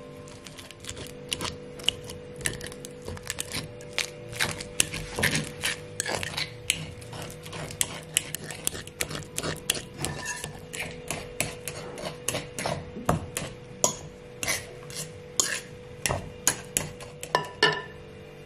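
Metal utensil clicking and scraping against a bowl or dish in many irregular taps, over soft steady background music.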